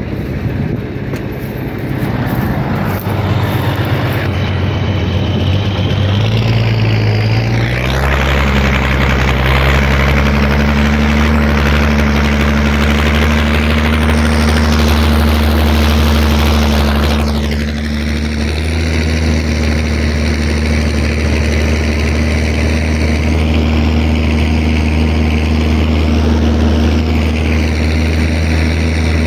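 Zetor tractor's diesel engine running steadily under load while pulling a plow. Its pitch climbs about seven seconds in and then holds even.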